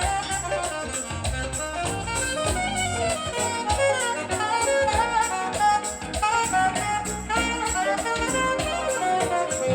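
Jazz with saxophone and brass, with a steady beat, played from a vinyl record on a Thorens TD 165 turntable and heard through hi-fi loudspeakers.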